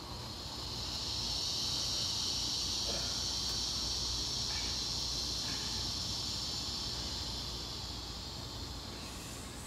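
Cicadas droning: a high, even buzz that swells about a second in and fades away near the end.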